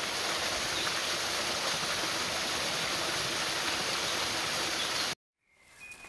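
Small woodland waterfall, a few metres high, pouring steadily over rocks into a stream: an even rush of water that cuts off abruptly about five seconds in.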